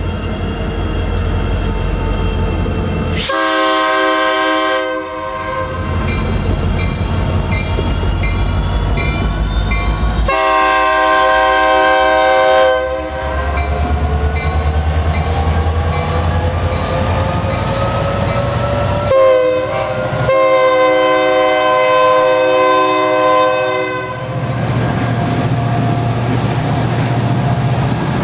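Diesel locomotive horn sounding the grade-crossing pattern of long, long, short, long over the low drone of the locomotive passing. After the horn, the empty coal hopper cars roll by with a steady rumble.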